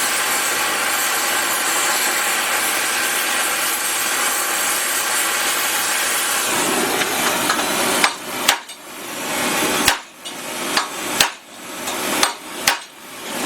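A torch hisses steadily while it heats a steel rivet. After about eight seconds, a hammer strikes the hot rivet six times at uneven intervals, bucking it to fasten a crossmember to a Willys CJ5 frame.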